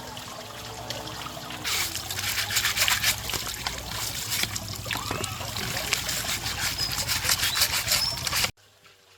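Water running and trickling. It grows louder about two seconds in and cuts off suddenly near the end.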